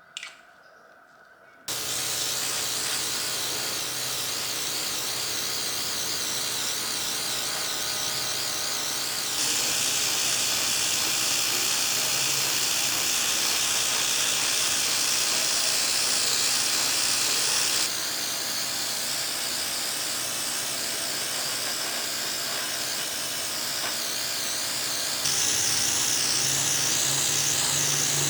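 A powered tool starts up and runs steadily, a hissing spray over a low motor hum. The hiss grows brighter and louder from about nine seconds in to about eighteen, and again near the end.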